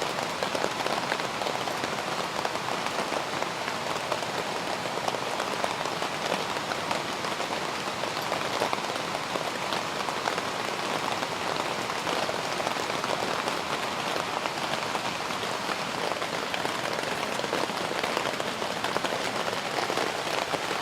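Steady rain falling, many fine drop impacts on a surface over an even hiss.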